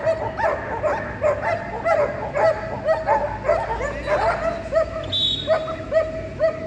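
German Shepherd dog barking over and over, short yelping barks at about three a second, at a steady pitch.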